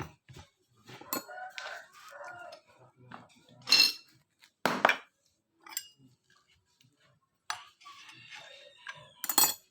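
Sharp metallic clinks and knocks of tools and parts being handled on a wood planer, three of them loud. A rooster crows in the background.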